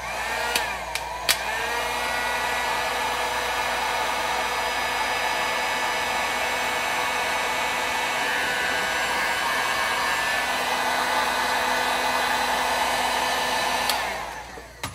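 Electric heat gun running. Its fan motor rises in pitch over the first second or so, with two sharp clicks. It then blows steadily with a whine and winds down near the end.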